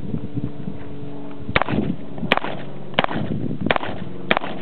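Rossi 2-inch snubnose .357 revolver firing .38 Special rounds: five shots in a steady string about two-thirds of a second apart, starting about a second and a half in, each with a short echo.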